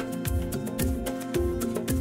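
Background music with a steady beat, about two beats a second, and pitched instrumental notes over it.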